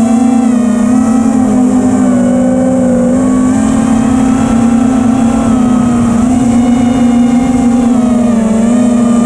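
Electric motor and propeller of a model aircraft heard from a camera on board: a loud, steady hum with a stack of higher tones, its pitch wavering gently up and down as the throttle and airspeed change.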